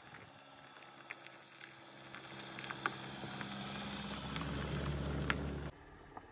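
Honda CR-V SUV driving past on a gravel road: a low engine hum and tyres crunching and ticking over loose stones, growing louder as it comes close, then cutting off suddenly about three-quarters of the way through.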